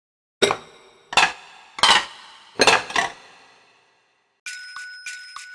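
Dishes clinking: a run of about five sharp clinks, each ringing briefly, as bowls stack onto a plate, the last ones coming close together. About four and a half seconds in, chiming bell-like music starts.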